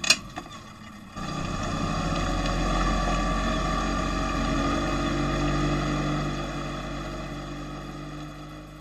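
Recorded sound effect of a boat engine running, coming in about a second in as a steady rumble and slowly fading away. It is preceded by a brief sharp high click at the very start.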